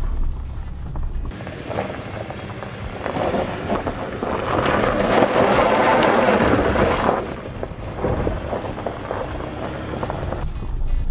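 Tires of a lifted Toyota RAV4 crunching and crackling over loose dirt and gravel as it crawls past, swelling to their loudest about halfway through and then fading. Low in-cab rumble at the start and again near the end.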